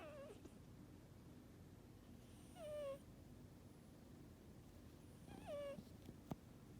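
Cat snoring in its sleep: a short nasal note that falls in pitch with each breath, heard twice about three seconds apart. A single faint click comes near the end.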